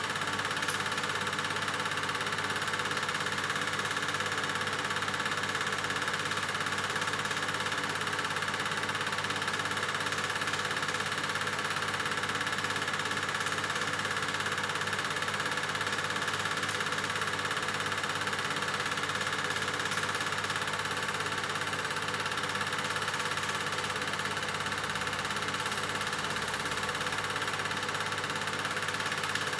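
Solex 18-3 Duo 8 mm film projector from 1970 running steadily: an even, unbroken mechanical noise from its motor and film transport.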